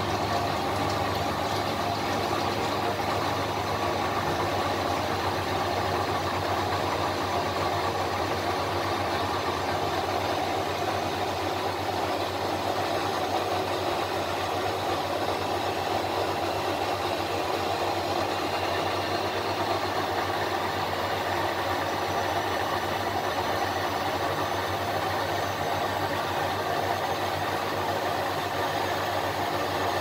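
A 1988 Miele WS 5406 front-loading washing machine running steadily mid-cycle, with a continuous motor hum and its drum turning with water and laundry.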